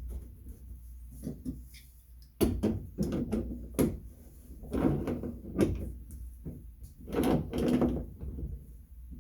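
Shower valve stems being fitted back into the valve body: a series of knocks and clicks with short stretches of scraping as the metal parts are handled and seated.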